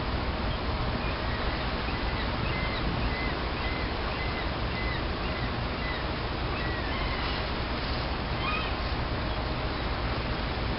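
Steady low rumble of a ferry under way, with scattered short high bird chirps over it.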